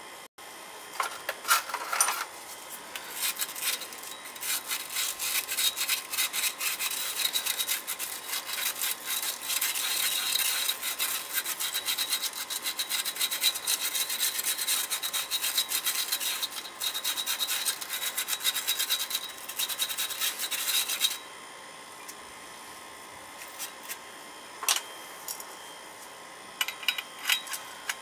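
Fast, continuous hand scrubbing against the small metal parts of an oil burner's nozzle assembly as it is cleaned during a service. The scrubbing stops about three quarters of the way in, followed by a few light metal clicks.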